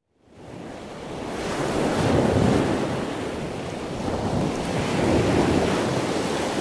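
Ocean surf: waves washing in, fading in from silence and swelling twice, about three seconds apart.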